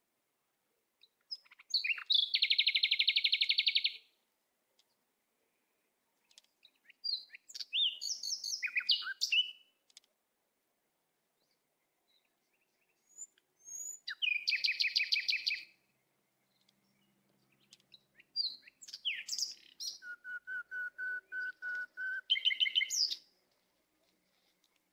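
A songbird singing four phrases of fast trills and whistled notes, with pauses between them.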